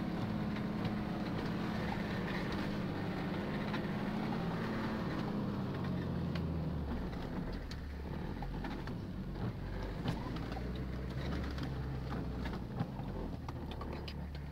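Off-road 4x4's engine running as it crawls over rough grassy ground, heard from inside the cab, with a few light knocks and rattles. About six seconds in, the engine note drops lower.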